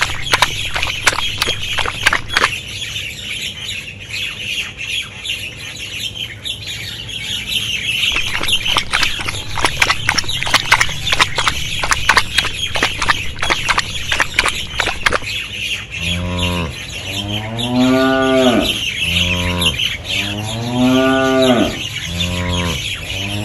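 Cattle mooing, about five drawn-out moos in quick succession, beginning about two-thirds of the way in. Before them there is only a steady high hiss with scattered clicks.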